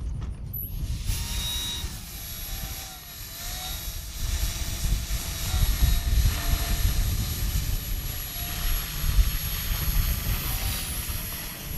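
Brushless electric motor and propeller of an FMS Cessna 182 RC plane on its landing approach, its whine gliding up and down in pitch under a steady high thin whine. Wind rumbles on the microphone.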